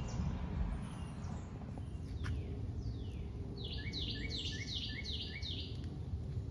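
A bird calling a quick run of about six repeated chirping notes a little past halfway, over a steady low rumble.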